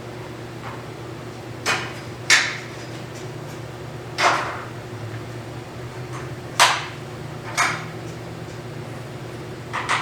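About six sharp knocks or taps from hand tools at uneven intervals, over a steady low hum.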